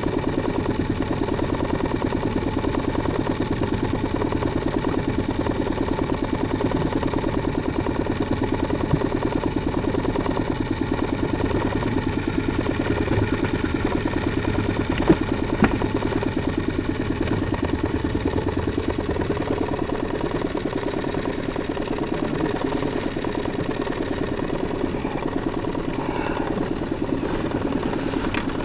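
Mercury outboard motor running steadily at low trolling speed, a constant even throb. Two short sharp knocks come about halfway through.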